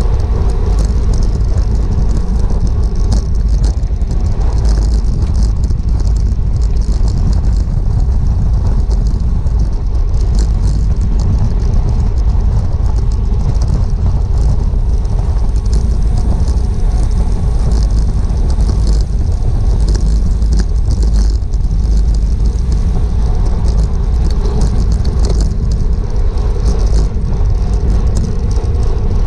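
Wind rushing over a GoPro's microphone while cycling: a loud, steady low rumble with faint hiss and scattered light clicks above it.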